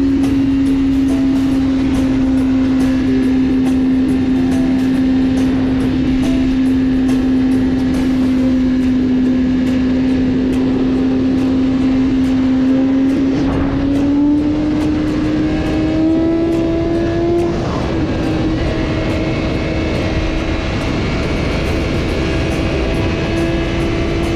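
BMW S1000RR inline-four engine running at steady high revs while cruising, its drone holding one pitch and then rising slightly in two small steps about halfway through as the bike speeds up, under constant wind rush.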